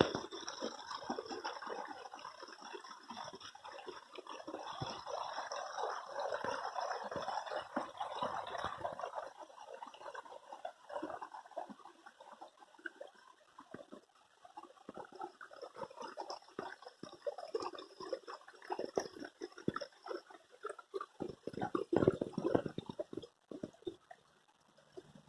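Water running and gurgling unevenly, heavier in the first part and patchier later, with a louder rush of water near the end.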